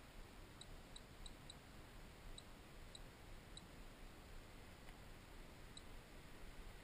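Near silence: a faint, even rumble and hiss, with a few short, faint high-pitched ticks at irregular intervals. No rotor or motor whine stands out.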